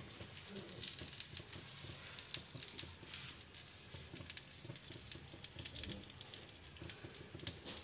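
Faint sizzling and crackling of a hot-oil baghar of fried garlic and cumin settling into mashed eggplant bharta, with scattered small clicks as a spoon stirs it in a steel basin.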